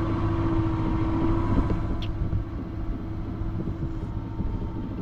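A sailing boat's auxiliary motor running steadily while motoring on a calm sea: an even hum over a low rumble, a little quieter after about two seconds.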